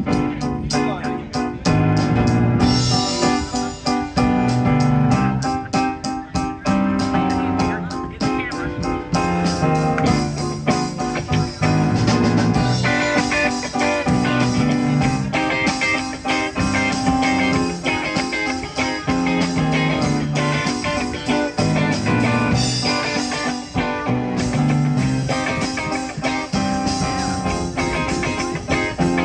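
A live rock band plays amplified through PA speakers: a drum kit, an electric bass, an electric guitar and a keyboard. It has a steady beat, with fast, even drum hits through the first several seconds.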